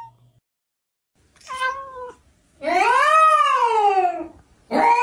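Domestic cat meowing: a short meow, then two long drawn-out meows, each rising then falling in pitch.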